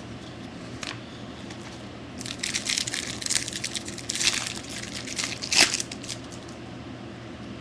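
Trading-card pack wrapper being torn open and crumpled by hand: a run of crinkling and crackling for about four seconds, with one sharper, louder crackle near the end.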